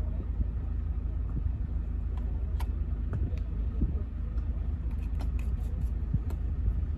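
A steady low rumble, with scattered light clicks and taps on top.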